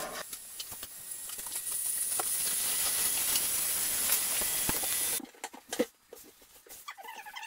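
Heat gun blowing with a steady high hiss. It cuts off after about five seconds and is followed by a few light clicks and a knock from a caulking gun being handled.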